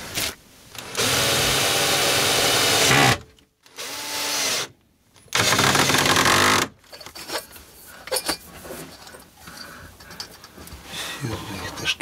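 Cordless drill-driver running in three bursts: two loud, steady runs of about two seconds each, with a shorter, quieter run between them. After that come scattered clicks and knocks of handling.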